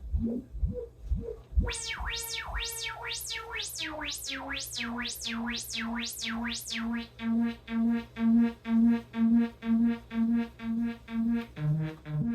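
Electronic synthesizer tones. Low wobbling notes give way to a run of fast up-and-down pitch sweeps, about two a second, for some five seconds. Then a low note pulses steadily about twice a second.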